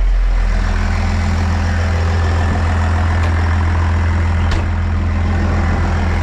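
Heavy diesel engine idling steadily, with a couple of faint clicks about halfway through.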